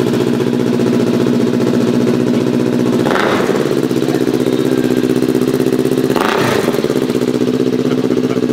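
Kawasaki Ninja parallel-twin motorcycle engine idling through an aftermarket exhaust, with two quick throttle blips about 3 and 6 seconds in.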